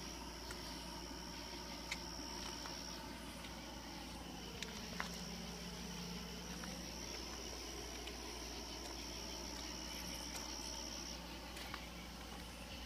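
Night insects trilling in one steady, high-pitched note that stops a little before the end, with a few faint clicks over it.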